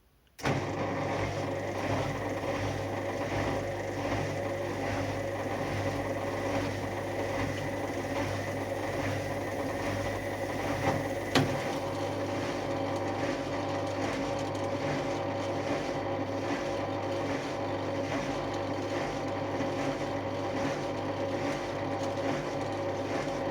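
Indesit WISL-series washing machine starting up abruptly and running with a steady mechanical hum and an even, regular pulse. A single sharp click comes about eleven seconds in.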